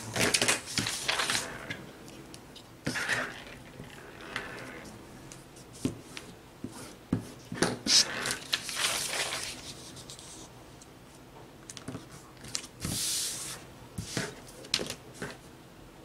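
Sheets of drafting paper rustling and sliding as they are handled and laid over one another, in short irregular bursts with scattered light taps and clicks.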